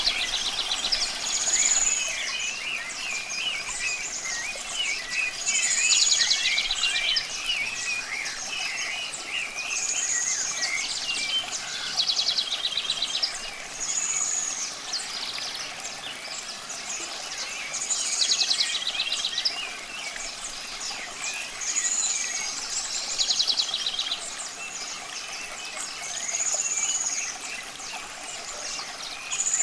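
Wild birds singing. One bird repeats a short, high whistled note about every four seconds, several times followed by a fast buzzy trill, while many smaller chirps go on throughout.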